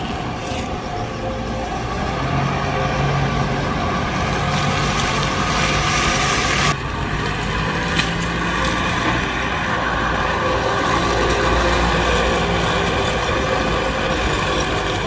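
Excavator engine running steadily with its weed-cutting attachment working, a dense hiss over the engine. The hiss drops off abruptly about seven seconds in, and a single sharp click follows a second later.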